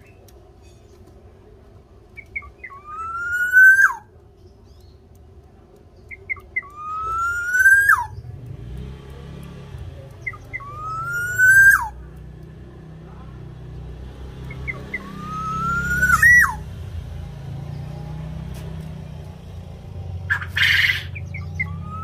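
Black-naped oriole (kepodang) singing the same phrase about every four seconds, five times: a few short high notes, then a loud whistle that rises and breaks off with a sharp drop.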